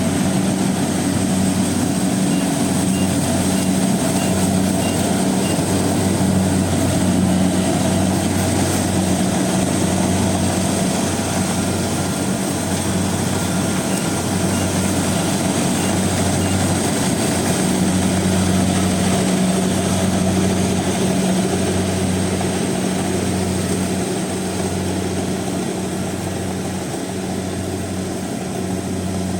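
Rice combine harvester running steadily under load, its engine and threshing machinery giving a constant drone with a thin high whine over it. It eases off slightly near the end.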